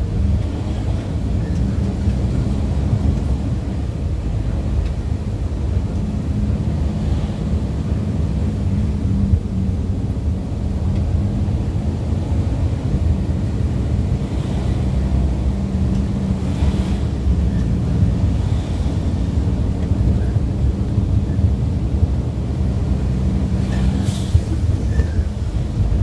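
Steady low rumble of engine and road noise from a vehicle driving, heard from on board, with a constant hum underneath and a few faint brief hisses.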